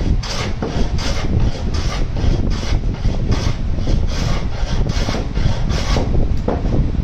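Metal hand plane shaving the edge of a wooden strip in quick back-and-forth strokes, about three a second, that stop about six seconds in, over a steady low rumble.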